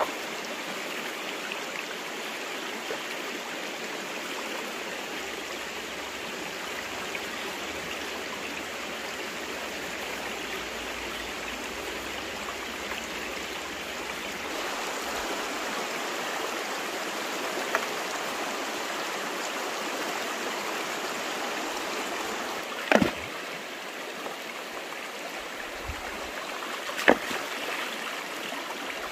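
Stream water running steadily, an even rushing burble, broken by two sharp knocks a few seconds apart near the end.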